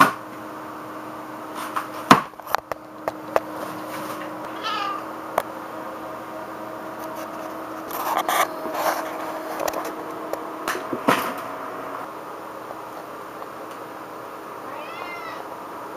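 A domestic cat meowing twice, once about five seconds in and once near the end, between scattered knocks and rustles of cardboard and paper being batted and torn.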